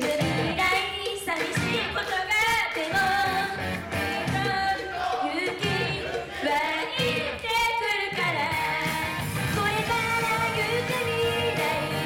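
Live J-pop idol song: young women singing into microphones over loud backing music.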